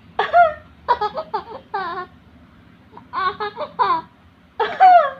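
A baby laughing in four bouts of quick, high-pitched laughs, with short pauses between them.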